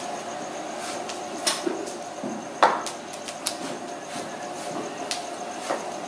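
Open wood fire crackling, with irregular sharp cracks and pops from the burning sticks; the loudest crack comes about two and a half seconds in.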